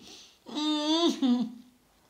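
A woman's voice making one long, held whimpering note that drops in pitch near its end, laughing through the pain of fresh breast-implant surgery.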